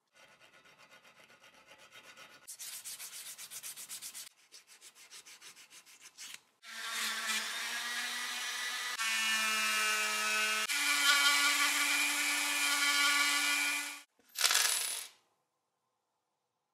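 A small brush scrubbing a brass part in quick short strokes, then a handheld rotary tool running with an abrasive polishing wheel against metal, a steady whine that jumps in pitch twice before stopping, followed by one short burst of the tool.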